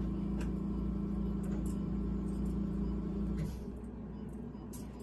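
Steady machine hum in a low, even tone that drops away about three and a half seconds in.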